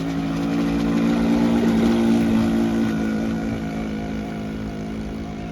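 Model boat's O.S. 40 four-stroke glow engine running steadily on the water, its pitch lifting slightly about two seconds in, then growing fainter.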